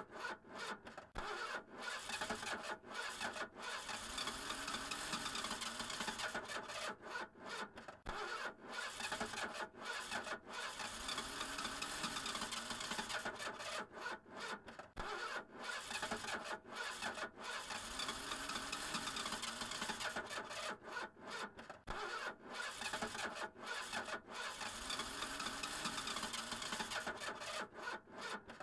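Car's starter motor cranking the engine over and over without it catching, the cranking broken by brief pauses every few seconds: a car that won't start.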